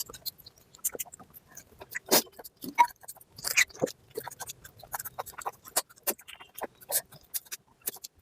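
Close-miked chewing and wet mouth sounds of someone eating mutton fat curry with rice: irregular smacks and clicks a few times a second.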